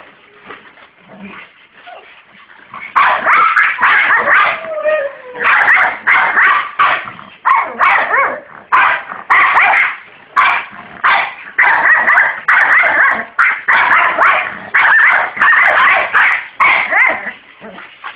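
French bulldog barking over and over, starting about three seconds in and going at about two barks a second, with a falling whine mixed in about four seconds in.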